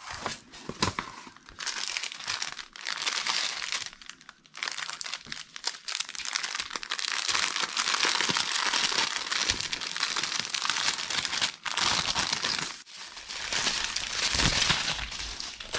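Thin plastic packaging crinkling as it is handled: the cellophane-wrapped canvas and a strip of small plastic bags of diamond-painting drills. It comes in long stretches with a few brief pauses.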